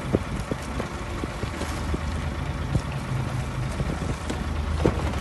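Escort boat's engine running with a steady low drone, wind buffeting the microphone and the choppy sea washing against the hull, with a few light knocks.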